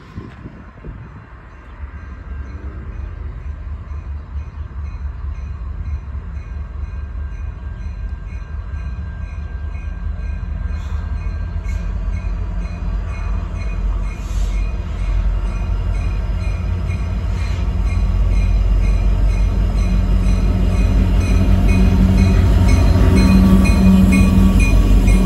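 Illinois Central EMD SD70 diesel locomotive, a 16-cylinder two-stroke, approaching and growing steadily louder, its engine and wheels loudest as it reaches the crossing near the end. A grade-crossing bell rings in a steady rhythm throughout.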